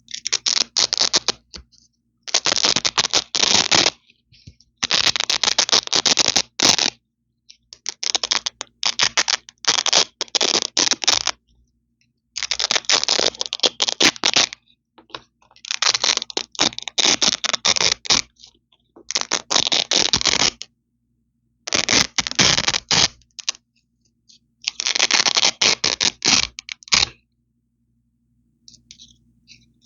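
Velcro strips ripped apart close to the microphone, about nine crackly tearing rips of a second or two each with short pauses between them.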